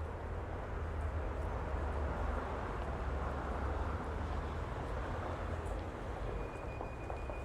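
Street traffic ambience: a steady low rumble of vehicles that swells for a few seconds in the middle, as with a heavy vehicle passing. A faint, high, steady tone begins near the end.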